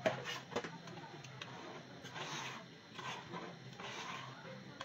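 A few light knocks of a spoon on an aluminium cooking pot in the first half-second, then soft scraping and rubbing as the pot of soup is worked by hand, over a steady low hum.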